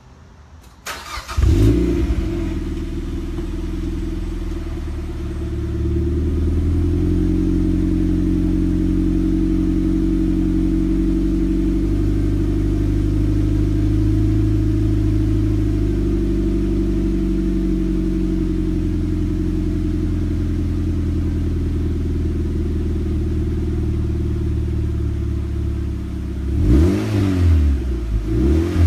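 A 2007 Mazda MX-5 Miata's 2.0-litre four-cylinder, heard at the tailpipes through a Goodwin Racing Super-Q stainless steel exhaust. It starts up about a second in and idles steadily. Near the end the throttle is blipped several times, the revs rising and falling quickly.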